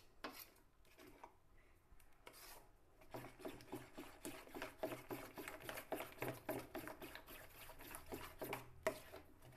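A spoon beating thick flour batter in a bowl: quick, repeated scraping and slapping strokes, a few at first, then fast and steady from about three seconds in.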